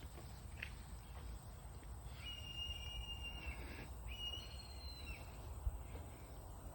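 Two long, high-pitched whistle-like cries from an unidentified animal, each held at a steady pitch: the first lasts about a second and a half, and the second, after a short gap, about a second.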